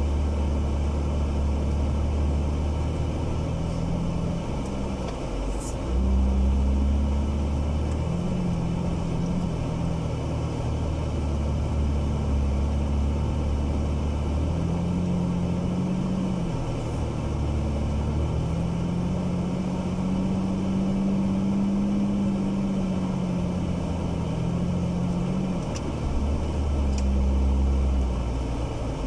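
Jeep TJ engine running under load as it crawls over snow, heard from the hood, with its revs rising and falling slowly. A few faint clicks come through.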